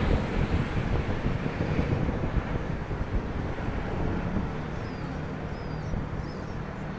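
Helicopter passing overhead, its rotor beat loudest at the start and fading as it moves off. A few faint high chirps sound about four to six seconds in.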